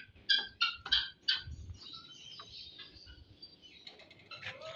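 Birds chirping in a quick run of short, high calls, about three a second, which die down after about a second and a half into fainter, scattered chirps.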